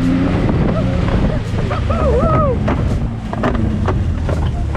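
Off-road vehicle driving over a rough track: engine rumble with wind buffeting the microphone and scattered knocks and rattles from the bumpy ground. A rider gives a short shout, rising and falling in pitch, about two seconds in.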